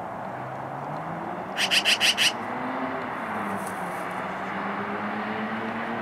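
A magpie's harsh chatter, five quick calls in a row about two seconds in. Under it, a steady traffic hum with a vehicle's engine note slowly rising and falling.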